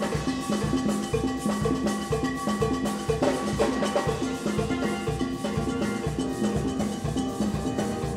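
A steel orchestra playing: many steelpans ringing out a melody in short repeated notes over a drum kit keeping a steady beat.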